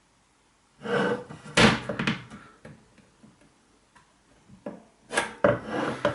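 Knocking and scraping clatter from a cooker door's metal panels and glass being handled during dismantling, with sharp knocks about a second and a half in and again near the end.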